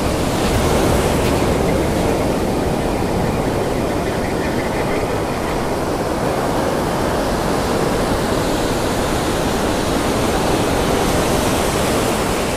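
Rough ocean surf washing and breaking close around the listener, a loud, steady rush of white water with no let-up.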